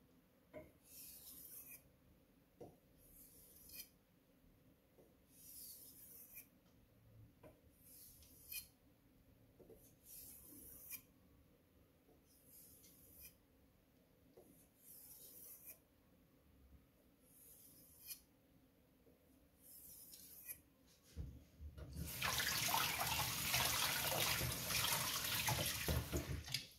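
A VG10 kitchen knife being drawn across a 6000-grit Arashiyama finishing whetstone, with a soft hissing stroke about every two seconds. After about twenty seconds, tap water runs loudly for about five seconds, as when rinsing the blade or stone.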